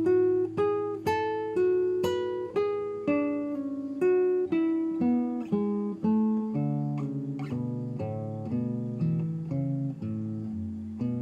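Background music: an acoustic guitar picking a slow melody of single plucked notes, about two a second, each ringing out over lower bass notes.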